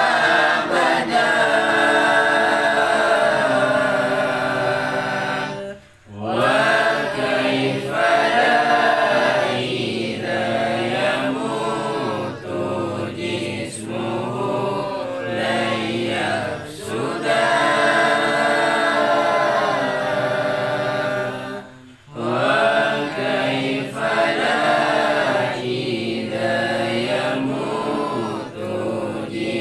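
A man's voice chanting long, melodic, drawn-out phrases, breaking off briefly about six seconds in and again about twenty-two seconds in.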